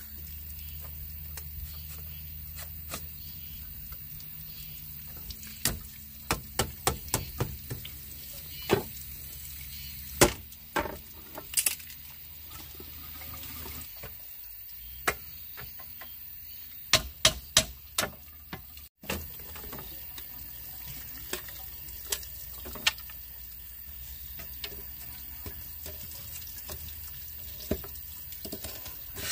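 Water running, with sharp knocks and clatters coming in short quick runs.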